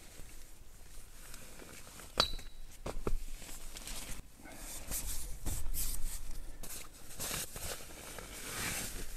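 Clothing and fabric rustling as a person pulls off layers of clothes while kneeling on a blanket-covered tent floor, with two sharp clicks about two and three seconds in.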